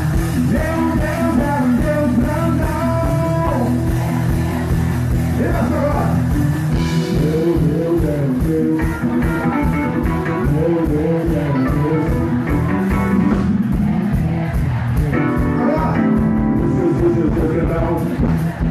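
Band music with drums, electric guitar and keyboard playing an upbeat song with a steady beat.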